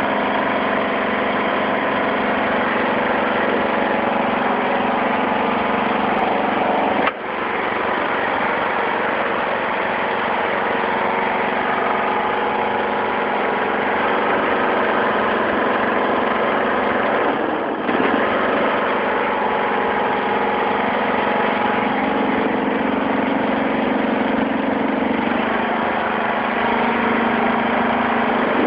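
Toro Wheel Horse HXL 16-44 lawn tractor's 16-horsepower engine running steadily at a constant speed.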